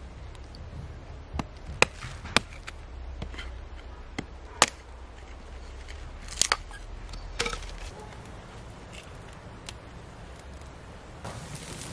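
Hatchet splitting a stick of firewood into kindling: a series of sharp, irregularly spaced chopping knocks, about seven over the first eight seconds.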